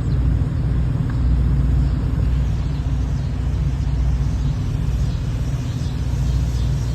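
A steady low rumble throughout, with faint high-pitched sliding bird calls coming in from about two and a half seconds in.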